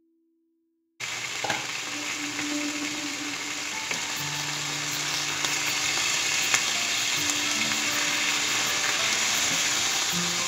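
Chicken pieces sizzling in hot oil in a nonstick frying pan, starting suddenly about a second in. A wooden spoon knocks against the pan a few times as the pieces are stirred and turned.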